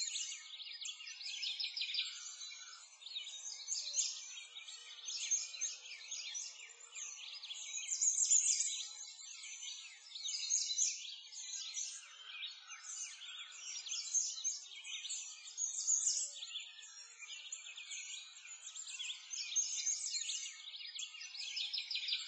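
Many small birds chirping and singing at once, a dense, busy chorus of short high calls that swells and fades every second or two.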